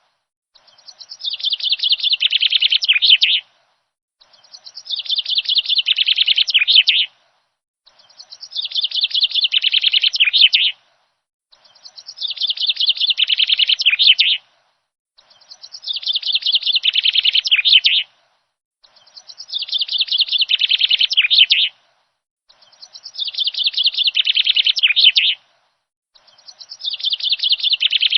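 Songbird chirping: the same phrase of rapid high chirps, about three seconds long, repeated over and over about every three and a half seconds, with clean silence between repeats, like a looped birdsong recording.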